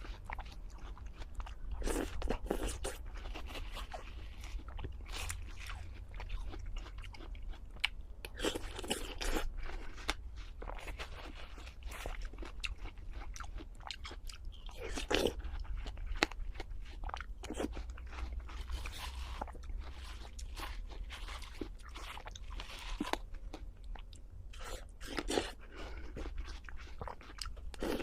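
Close-miked eating: crunchy bites and chewing, crisp irregular crunches coming every second or so, over a steady low hum.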